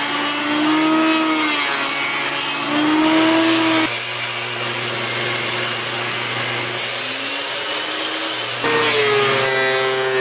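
Electric woodworking machines cutting aromatic red cedar boards: first a benchtop machine, then a portable table saw. The motor's pitch dips and recovers as the wood feeds through. The sound changes abruptly about four seconds in and again near the end.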